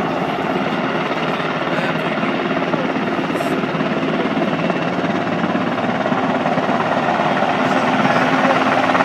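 Low-flying Black Hawk military helicopter, its main rotor blades making a steady rapid chop over the whine of its turbine engines, growing a little louder near the end as it comes closer.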